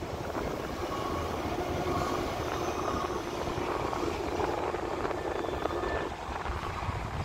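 Ship's deck crane running as it hoists a clamshell grab out of the cargo hold: a steady mechanical drone with a faint whine, its hum thinning a little about six seconds in.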